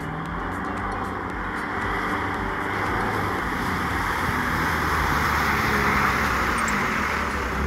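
A four-wheel-drive ute towing a caravan drives through a shallow floodwater crossing on a dirt track. Its engine runs under a rush of water splashing and spraying off the tyres, growing louder as it comes closer.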